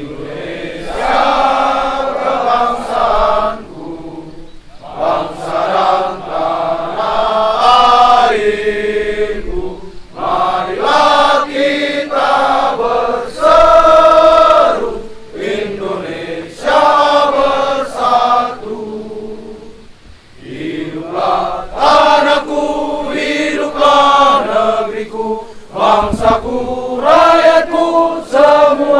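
A large group of voices singing a song together in sung phrases with short pauses between them.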